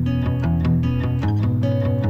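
Background music: quick, evenly spaced plucked notes over a lower bass line.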